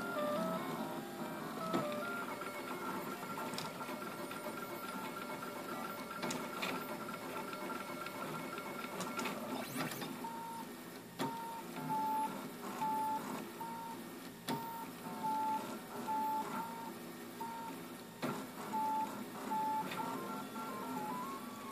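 Stepper motors of a RepRap 3D printer whining at changing pitches as the print head moves through its infill moves, the pitch stepping with each change of speed and direction, with a few sharp clicks among them. From about ten seconds in, the whine turns into a quick repeating run of short tones.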